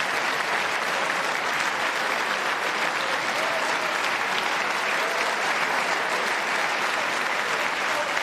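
A large audience applauding steadily, many hands clapping at once in a long, unbroken ovation.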